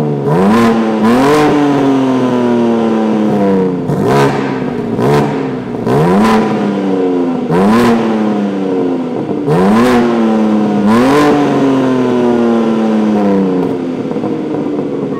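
BMW M3 G80's 3.0-litre straight-six (S58) through a rebuilt exhaust with X-pipe and chambered resonator, revved hard about eight times, the pitch climbing quickly with a bark and falling away slowly after each blip. Its sound is raspy but racy, with no parasitic rattles from the exhaust.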